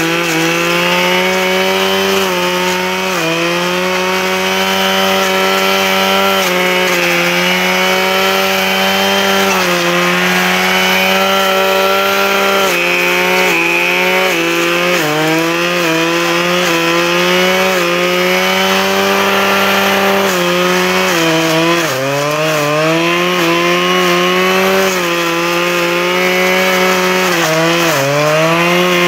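Husqvarna 535 RJ brushcutter's two-stroke engine running near full throttle, its pitch sagging and climbing back again every few seconds as the Brushdestructor blade bites into brush and cuts through.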